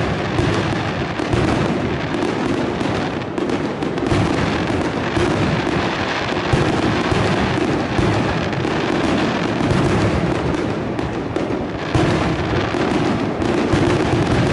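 Fireworks display going off in a dense, continuous barrage of overlapping bangs and crackles, with no pause.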